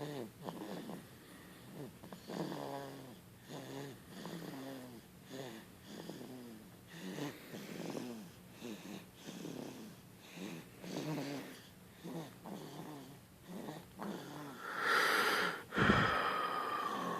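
Rhythmic snoring, a pitched rasping snore roughly every second. Near the end comes a louder, noisier snort with a high whistling tone.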